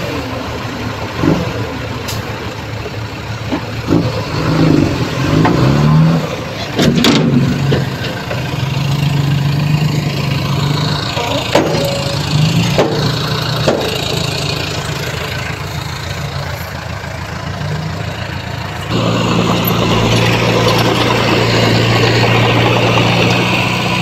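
Heavy earthmoving machines' diesel engines running, rising and falling in pitch as they rev, with a few sharp clanks. About nineteen seconds in, the sound changes suddenly to a louder, steadier engine hum.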